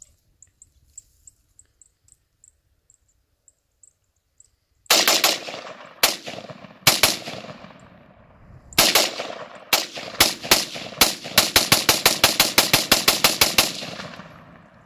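AR-15 rifle firing semi-automatic: a few single shots about a second apart starting about five seconds in, then quickening into a rapid string of about four shots a second. Each shot is followed by a short rolling echo, and the string stops about a second before the end.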